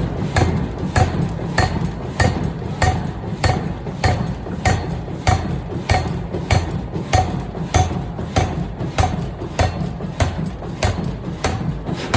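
Pneumatic forging air hammer striking hot steel in a rapid, even rhythm of about three blows a second, over a steady low drone of factory machinery.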